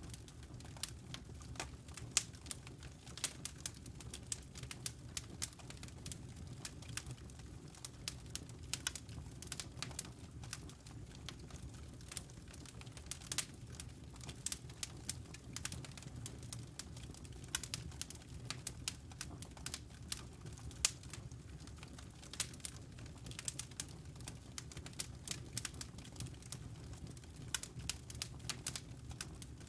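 Wood fire crackling, with irregular sharp snaps and pops over a steady low rumble.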